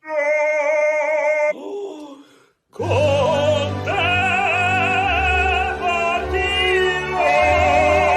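Operatic singing: a held high note with vibrato, a downward slide, a brief break, then a sung line over orchestral accompaniment with a steady bass.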